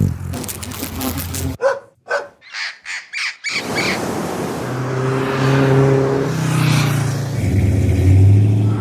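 A string of different sound effects: a low hum, then a run of about six short, sharp knocks, then a steady noisy drone with a low tone that swells near the end.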